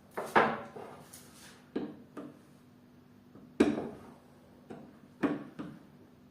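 A series of sharp wooden knocks and clatters, six or so spread irregularly, the loudest near the start and about three and a half seconds in: parts of an old wooden dresser being handled and set down.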